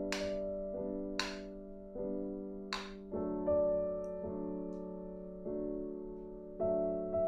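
Slow, gentle solo piano background music. Three short clicks of wall light switches being flicked off come within the first three seconds.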